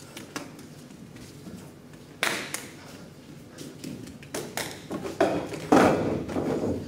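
Bare feet slapping on a tiled floor, with a few sharp knocks; near the end a metal-framed chair knocks and scrapes on the tiles as it is stood upright, the loudest sound.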